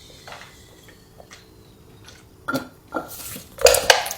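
Close-up eating or drinking mouth sounds: quiet at first, then a few short, wet sounds between about two and a half and four seconds in.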